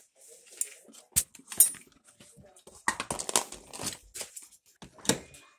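Wooden kitchen drawers being pulled open and pushed shut, with metal cutlery rattling inside: a series of sharp clicks and knocks, the loudest about a second and a half in, and a last knock near the end.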